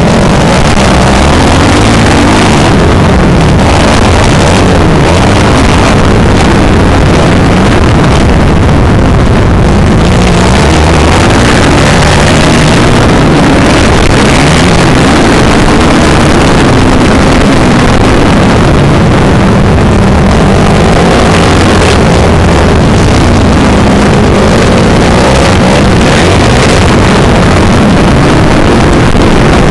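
Motocross bike engine revving up and down continuously as it rides the track, loud and distorted, with wind buffeting on the onboard microphone.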